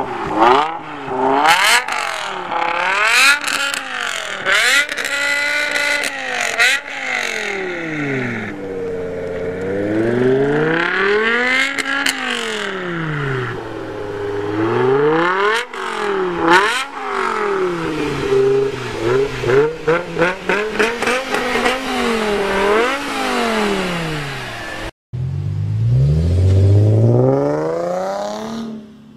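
BMW M5 E60's V10 through a Meisterschaft GT2 exhaust, revved again and again, its pitch climbing and falling with bursts of crackle between revs. About 25 seconds in, a sharp cut gives way to an Infiniti G37's V6 with high-flow cats revving up from low.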